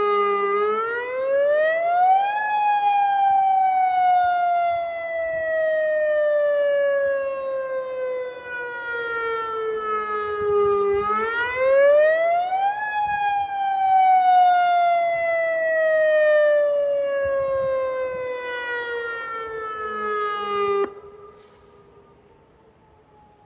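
Federal Signal Modulator electronic outdoor warning siren sounding a wail, its attack signal. The pitch rises quickly over about two seconds, then falls slowly over about eight, twice over. The siren then cuts off abruptly near the end, leaving only a faint falling tone.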